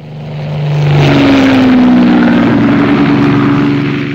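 Propeller aircraft engine drone swelling to loud about a second in, its note dropping slightly partway through, then beginning to fade near the end, like a plane passing overhead.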